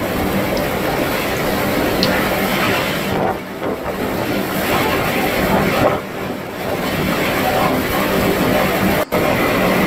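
Hurricane-force wind blowing as a dense, steady rushing noise, with a brief dropout about nine seconds in.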